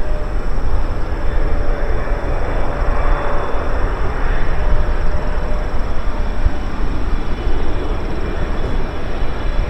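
Jet engines of a Boeing 777-300 on final approach, passing low: a loud, steady roar with a deep rumble and a held whining tone, swelling briefly about three seconds in.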